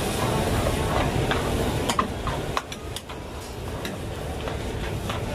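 Metal ladles scraping and stirring char kway teow in a large flat iron wok, with sharp clinks of the ladles against the pan from about halfway through. A steady low rumble runs underneath.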